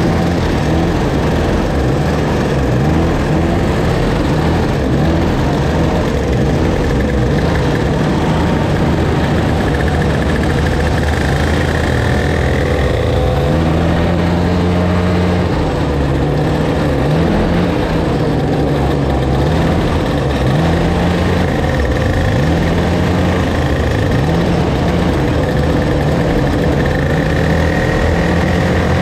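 Several two-stroke racing kart engines idling together, the pitch wavering up and down as drivers blip their throttles. One revs higher and holds for about two seconds roughly halfway through.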